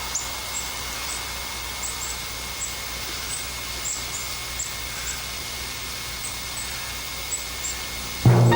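Background ambience with scattered short, high-pitched chirps, a few each second at uneven spacing, over a faint steady hum. Loud music with a low bass line and plucked notes starts right at the end.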